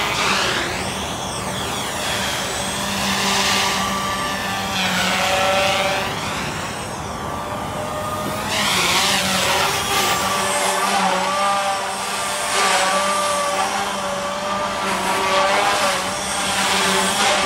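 Stingray 500 electric quadcopter with variable-pitch rotors in flight: a steady rotor buzz and whine that swells and fades several times as it passes close and moves away, its pitch shifting up and down as it manoeuvres.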